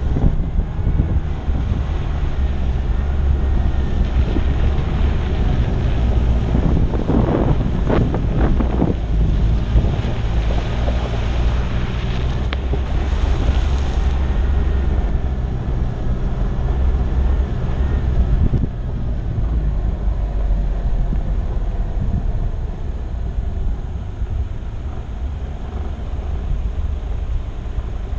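Wind buffeting the microphone over the steady low rumble of a 4x4's engine and tyres crawling along a rocky, gravelly riverbed track. A run of knocks comes about seven to nine seconds in.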